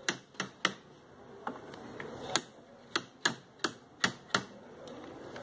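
About ten sharp clicks and taps at an uneven pace as rattan cane strands are worked against a metal flat bar laid across the warp on the chair frame.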